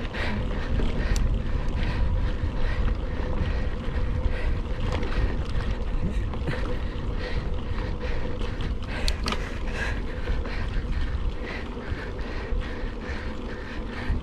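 Mountain bike ridden fast along a dirt trail: wind buffeting the microphone with a steady low rumble, and the bike rattling and clicking over the ground many times over.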